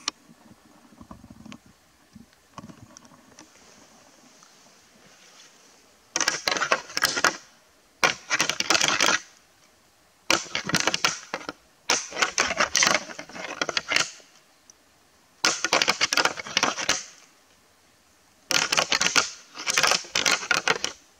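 Six loud bursts of close crackling rustle, each lasting a second or two with silent gaps between, the first about six seconds in.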